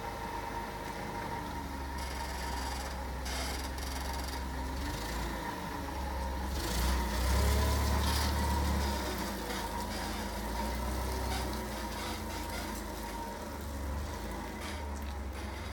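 LPG-powered Daewoo G20SC forklift engine running as the forklift reverses and drives off. The engine revs up and gets louder about seven to nine seconds in, then settles back to a steady hum.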